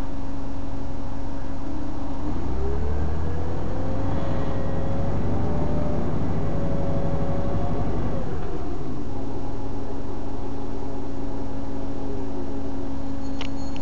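City bus engine and drivetrain running, heard from inside the cabin. About two seconds in a whine rises in pitch as the bus pulls away, holds high with a heavier rumble beneath it, then falls back at about eight seconds.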